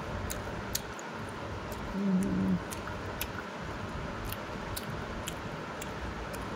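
Fingers working chicken curry and rice on a steel plate: faint, scattered small wet clicks over a steady hiss. A short hummed 'mm' from a voice comes about two seconds in.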